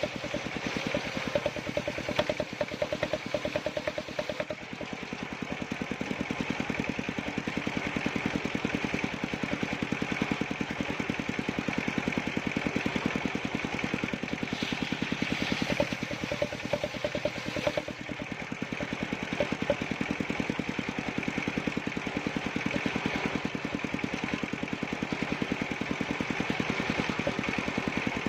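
Engine of a circular-saw wood-cutting machine running steadily at an even, fast beat.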